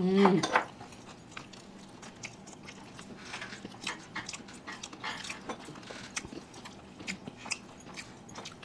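Close-up eating sounds: people chewing and biting into fried chicken drumsticks and cake, with scattered small crunches and clicks.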